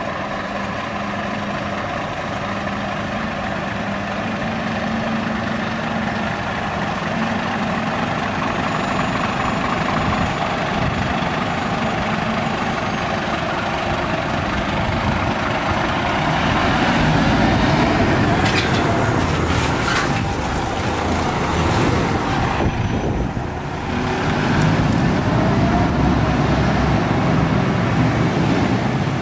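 Scania aerial ladder fire truck's diesel engine running as the truck pulls out and drives off, growing louder about halfway through. A few short hisses come around two-thirds of the way in.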